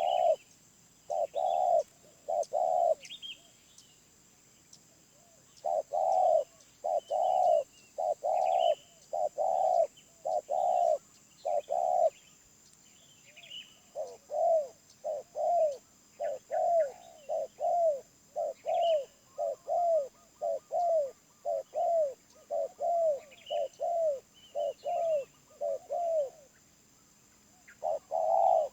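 Spotted dove cooing: low, arched coo notes in short groups of two to four with pauses between, then a long unbroken run of about eighteen coos in the second half. Faint higher chirps of small birds sound between the coos.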